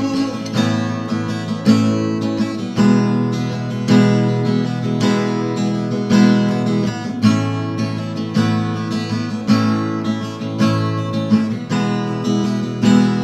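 Acoustic guitar strummed in a steady rhythm, with an accented stroke about once a second and lighter strokes between.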